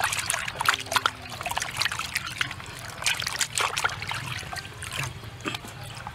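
Water splashing, trickling and sloshing in a plastic basin as hands scrub a softshell turtle, with irregular small splashes and drips throughout.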